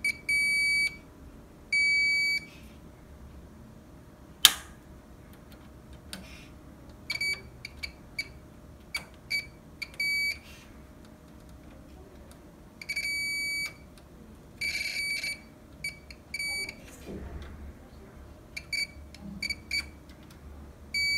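Digital multimeter's continuity buzzer beeping on and off as the probes touch the LED backlight strips' connector contacts: a high steady tone, some beeps very short and some held about half a second, each beep showing that the connection conducts. One sharp click comes about four and a half seconds in.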